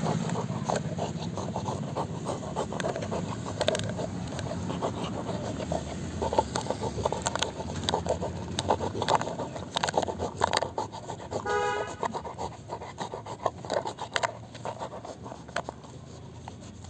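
Hard shell of a stone apple (wood apple) being scraped and knocked at in an effort to break it: a dense, irregular run of scratching and small clicks. A short high-pitched whine cuts in about eleven and a half seconds in.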